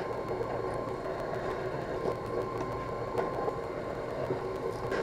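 Drill press running steadily, its bit drilling holes through a stack of bolted steel discs; a constant motor hum with the cutting noise.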